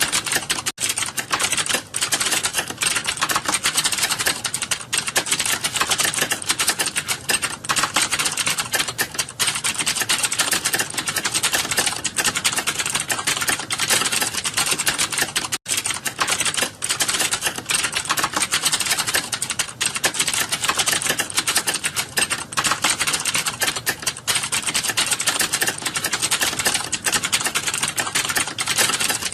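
Fast, continuous keyboard typing: a dense run of key clicks during a timed typing test, with a brief pause about a second in and another about halfway.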